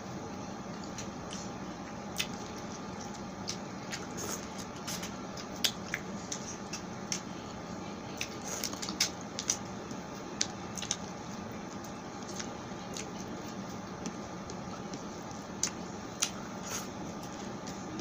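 Close-miked eating sounds: a person chewing pork sisig and rice eaten by hand, with scattered sharp wet mouth clicks and smacks over a steady background hiss.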